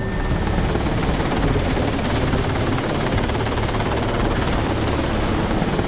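Cougar military transport helicopter running, its rotor and turbines making a steady, loud, dense noise.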